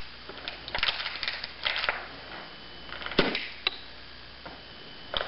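Empty plastic water bottle being twisted, the plastic crinkling and crackling as the air inside is squeezed. About three seconds in the cap shoots off with one sharp pop, and a lighter click follows half a second later.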